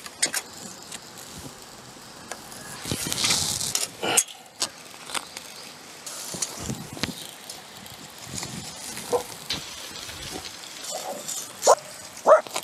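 Footsteps and handling noise of someone working on a dirt yard: scattered scuffs, scrapes and light knocks, with a brief hiss about three seconds in.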